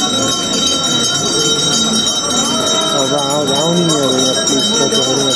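Bells of a Hindu evening aarti ringing on without a break, a steady shimmering ring. Voices sing a devotional chant over them, the singing wavering up and down in pitch about halfway through.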